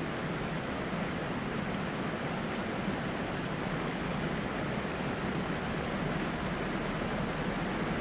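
Steady rushing of a shallow, rocky river and a low weir waterfall.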